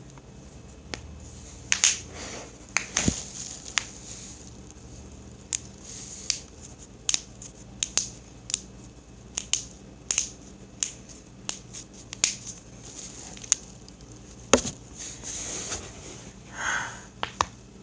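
Joints cracking during a self-adjustment: a long run of scattered sharp clicks and pops, with two heavier pops about three seconds in and about fourteen and a half seconds in.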